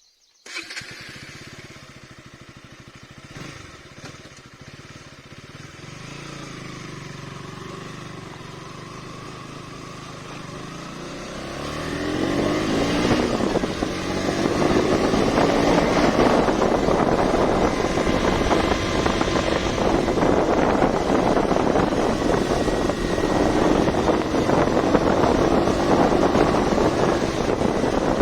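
KTM Duke 200's single-cylinder engine. It comes in suddenly near the start and runs at a low, steady level. About twelve seconds in it gets much louder with rising pitch as the bike accelerates, then runs loud and steady under riding load.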